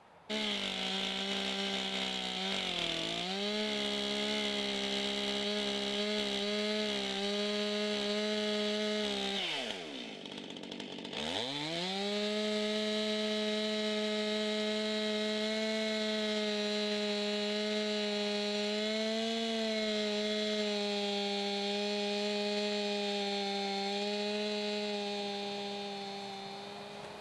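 Stihl two-stroke chainsaw running at high revs, cutting along a log, its pitch steady. About ten seconds in, the engine winds down almost to idle and revs straight back up. The sound fades near the end.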